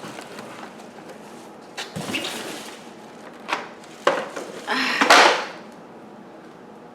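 Parts and packaging of a new upright vacuum being handled: a few separate knocks and clicks, then a louder, brief scraping rustle about five seconds in.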